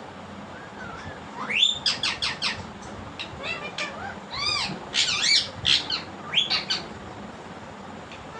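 Pet parakeet calling: a quick series of short, arching squawks and chirps, starting about a second and a half in and stopping near the end.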